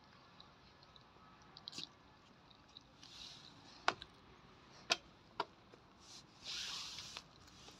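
Faint handling noise: a few soft clicks and a rustle of knitted wool rubbing against the phone's microphone.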